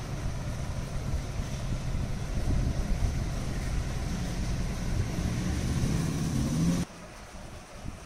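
Steady low rumbling background noise, with the sound of air buffeting the microphone, that cuts off abruptly about seven seconds in, leaving a much quieter hum.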